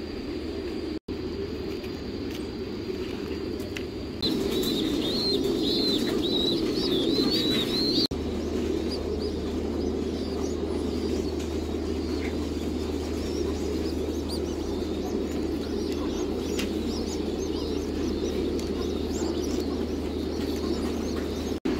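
Young pigeon squabs cheeping in high, squiggly chirps, loudest for a few seconds, then fainter scattered peeps, over a steady low hum.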